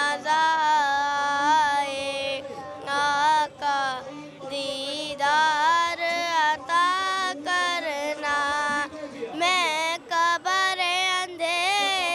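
A young boy singing an Urdu naat in long held phrases whose pitch wavers and bends, with short breaths between phrases.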